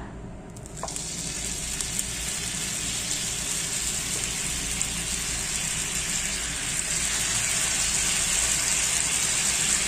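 Marinated chicken pieces frying in a hot pan of butter and oil: a sizzle that starts about a second in, as the first piece goes in, and builds steadily louder, with faint crackles.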